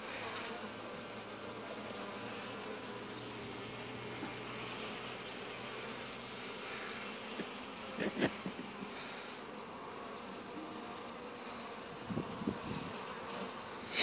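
Honeybees buzzing steadily on a comb frame lifted out of an open hive, the even hum of a dense colony. A few brief knocks come through about eight and twelve seconds in.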